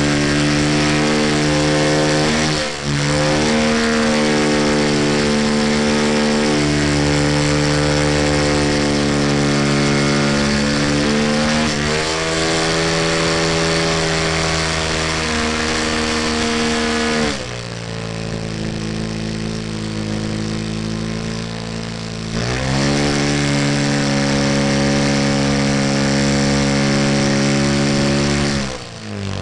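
Senior Telemaster radio-controlled model plane's engine running near full throttle in flight, close to the microphone. About 17 seconds in the throttle is pulled back and the pitch falls; about five seconds later it climbs back to full power, then drops again near the end.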